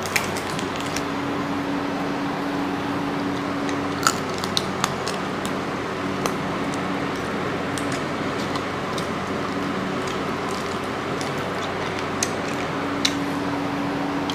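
Eating by hand at a table: a scattering of sharp clicks and cracks from fingers on plates and bitten giant prawn shells, a few of them close together about four seconds in and two more near the end, over a steady background hum and hiss.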